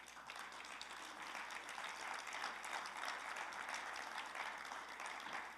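Church congregation applauding, many hands clapping at once, swelling over the first couple of seconds and easing off near the end.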